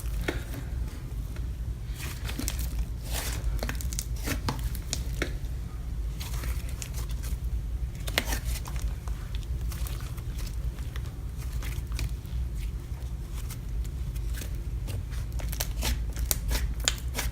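Hands stretching and squishing soft butter slime, giving scattered small crackles and clicks over a steady low hum.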